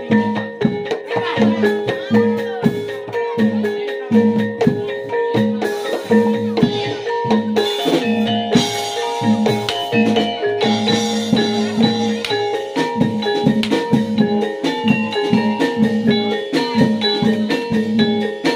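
Javanese gamelan music for a jaranan horse dance: metal mallet instruments playing quick repeating note patterns over drums, with a steady beat.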